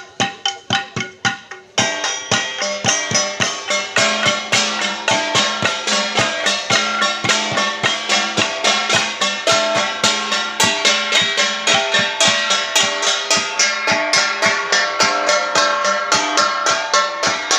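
Traditional Ifugao gong music: flat gongs struck in a fast, even rhythm of about four beats a second, with ringing tones between strikes. The sound becomes fuller and denser about two seconds in.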